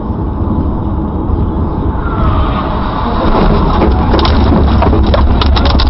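Car road noise heard from inside at speed, then from about two seconds in a clatter of sharp knocks as dirt and stones thrown up ahead strike the windshield and body, densest near the end.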